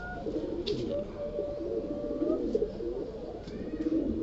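Domestic pigeons cooing, several wavering coos overlapping, with a couple of longer held notes. A few brief handling noises come about a second in and again near the end.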